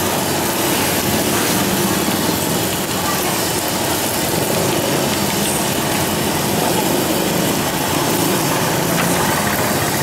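Hot oil sizzling steadily in a wok as long dough sticks deep-fry, with a steady engine-like hum underneath.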